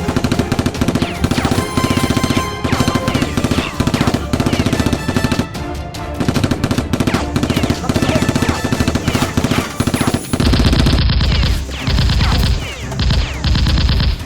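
Rapid automatic gunfire in long continuous bursts, with music underneath. About ten seconds in it turns into heavier bursts broken by short pauses.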